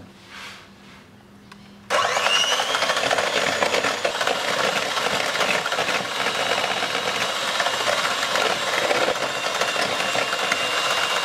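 Electric hand mixer with twin wire beaters switched on about two seconds in, with a short rising whine as it spins up, then running steadily as it whips egg whites and icing sugar into meringue.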